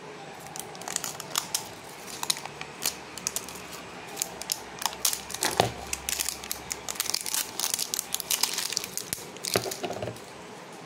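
Printed label being peeled and torn off a plastic face cream jar: a run of crackling rips and crinkles that stops shortly before the end.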